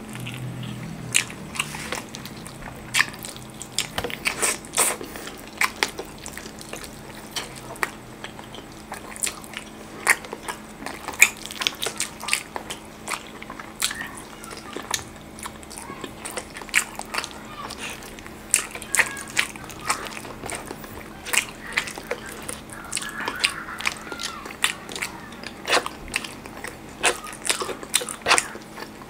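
Close-miked chewing and biting of chicken and rice, with many short, irregular mouth clicks.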